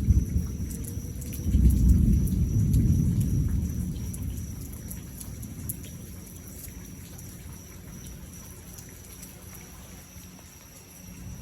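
Thunder rolling in a thunderstorm: a deep rumble that swells about a second and a half in, then fades away over several seconds.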